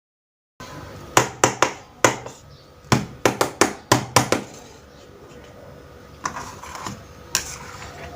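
Small plastic toy kitchenware pieces being handled and knocked together: a quick run of about ten sharp clicks and clacks, then quieter handling and one more click near the end.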